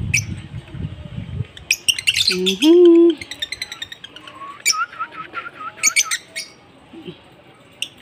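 Lovebirds chirping in quick, sharp bursts: a cluster about two seconds in and another run between about five and six and a half seconds. A brief wordless hum-like voice sound comes near the middle and is the loudest moment.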